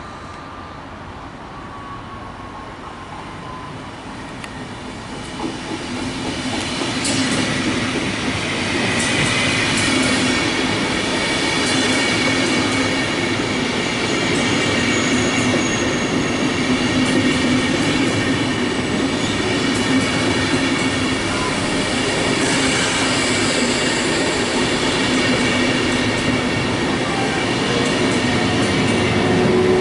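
A train approaching and passing on the tracks: it grows louder over the first several seconds, then runs steadily close by, with high steady tones over the rolling rumble.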